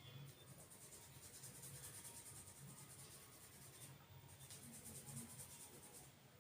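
Faint, fast scratching of fingers rubbing through hair and over the scalp in a head massage, pausing briefly about four seconds in.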